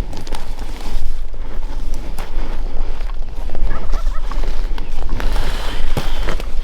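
A wild turkey gobbler gobbling once, a quick rattling call about four seconds in, over a steady low rumble.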